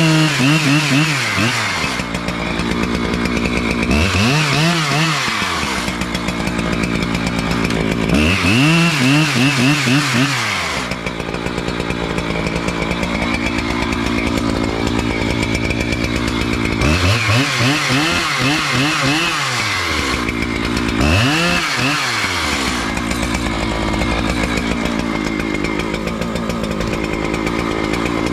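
Petrol chainsaw cutting into the base of a sycamore trunk, the engine running throughout and rising and falling in pitch repeatedly as the throttle is worked through the cut.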